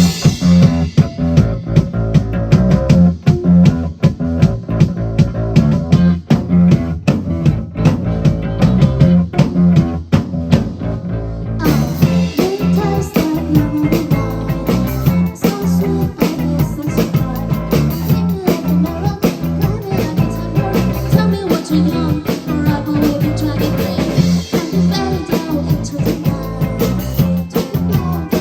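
A rock band playing a song with drums, bass and electric guitar, all coming in together sharply at the start after a quieter held passage. About twelve seconds in the sound grows brighter and fuller.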